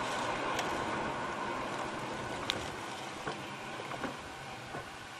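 Tyre and road noise heard inside a car on a wet road, fading gradually as the car slows down, with a few faint clicks.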